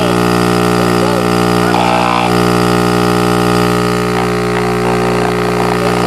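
DD Audio 9915 15-inch subwoofer connected straight to a household wall socket, its cone driven by mains power and giving a loud, steady, buzzy hum with a dense stack of overtones.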